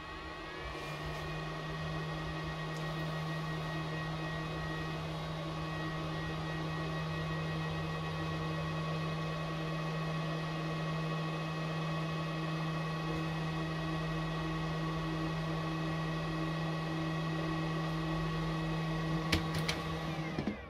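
Makita 40V XGT battery charger's cooling fan spinning up about half a second in and then running steadily with a hum and a whine. Near the end there are a couple of clicks and the fan stops.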